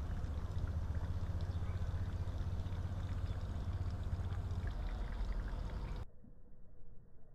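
Steady outdoor rushing noise with a heavy low rumble from wind on the microphone. About six seconds in, it drops to a much quieter, muffled hush.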